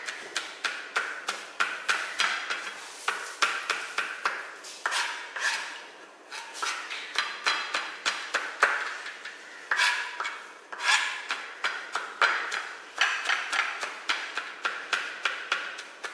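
Kitchen knife chopping garlic finely on a plastic cutting board: a steady run of quick knocks, about three a second, with a couple of short pauses.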